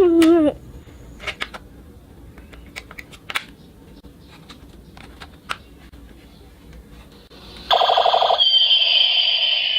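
Scattered light plastic clicks and taps. About three-quarters of the way in, a battery-powered toy machine gun's electronic sound effect starts suddenly and loudly: a rapid buzzing rattle, then a high electronic tone sliding slowly downward.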